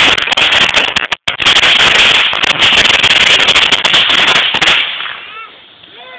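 A rapid string of firecrackers going off: a loud, dense, continuous crackle that drops out for an instant about a second in and dies away about five seconds in.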